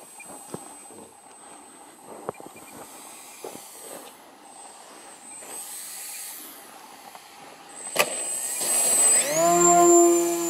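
Electric motor of an E-flite Timber RC plane, faint during a low touch-and-go pass. After a sharp knock about eight seconds in, the motor spools up to full throttle for takeoff: a whine that rises in pitch and then holds steady.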